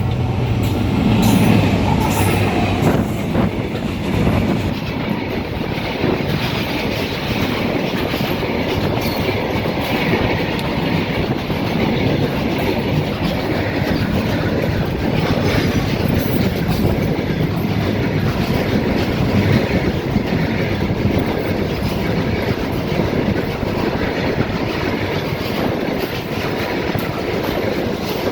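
Train running on the rails with a steady rumble and clatter of wheels over the track.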